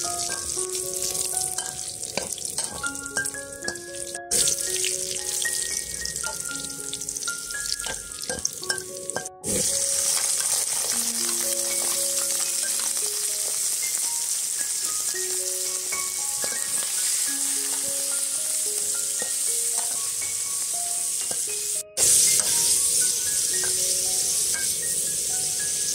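Chopped pork fat and pork offal sizzling in hot oil in a steel wok, stirred with a metal spatula. The steady hiss drops out for an instant three times.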